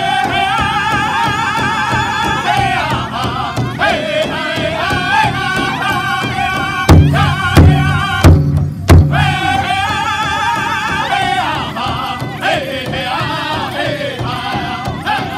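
Powwow drum group singing a chicken dance song in high, wavering voices over a large hide drum struck in unison by several drummers. About seven seconds in the voices drop out for a few loud, separate drum strokes, then the singing comes back.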